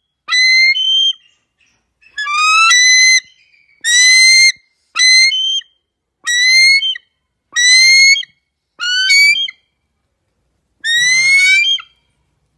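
A series of eight short, high whistled calls with silent gaps between them, most rising slightly in pitch.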